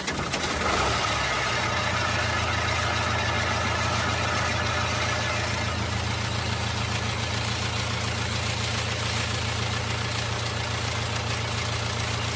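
Isuzu 4HF1 four-cylinder diesel engine catching right after cranking and settling into a steady idle with a diesel knock. It is a cold-morning hard start, with the engine reluctant to fire on the first turn of the key.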